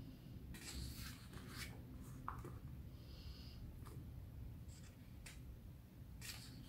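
Faint rustling and brushing of paper as the pages of a softcover booklet are handled, lifted at the edge and smoothed flat by hand, in a few short scattered strokes.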